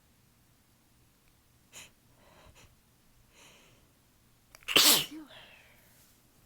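A person sneezing once, loud and sudden, about four and a half seconds in, after a few faint short breaths, with a brief breathy tail just after the sneeze.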